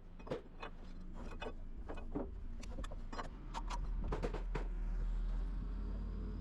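Nailing on wooden floor framing: a string of sharp, irregularly spaced nail strikes, about two or three a second, over a low rumble of machinery that swells in the second half.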